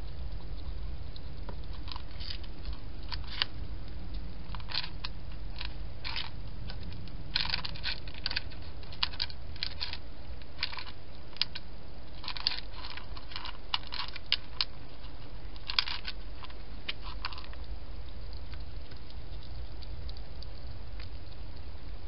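A hedgehog eating at a plastic dish: irregular crunching clicks, often in quick clusters, that start about two seconds in and stop a few seconds before the end, over a steady low hum.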